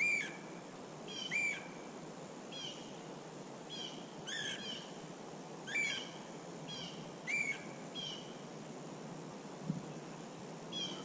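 A bird calling in the woods: about a dozen short, slurred notes, roughly one a second, with a pause near the end, over faint steady background hiss.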